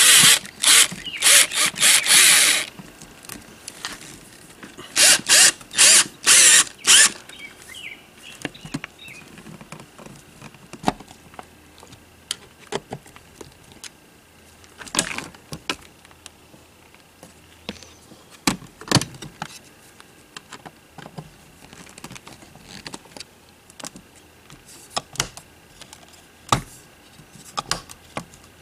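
Cordless drill run in short trigger bursts at the screw holes of an RV power inlet plate: a cluster of whirs in the first couple of seconds and another five about five seconds in. After that only scattered light clicks and taps.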